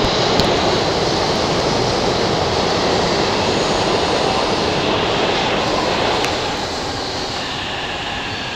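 E259 series Narita Express electric train running past: a steady rumble of wheels on rail that eases down about six and a half seconds in.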